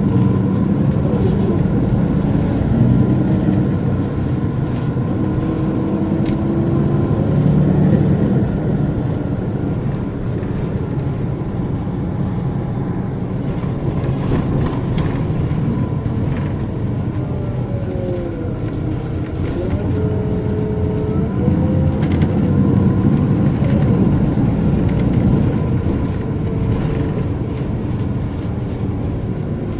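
Volvo 8700LE city bus's Volvo D7E six-cylinder diesel and ZF Ecomat automatic gearbox driving, the engine note rising and falling several times as the gearbox shifts through its gears. A steady high turbo whistle sits over the engine rumble.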